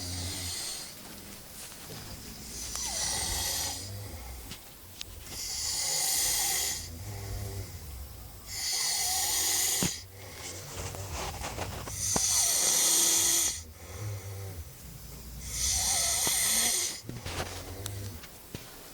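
Sleeping people snoring, with a loud snore about every three seconds, five in all, and a low rumble in between.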